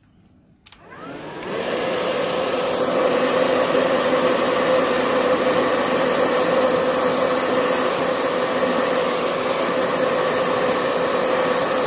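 Hair dryer switched on and blowing steadily to dry wet ink on a painting, a loud whir with a steady hum, coming up to full speed in the first couple of seconds.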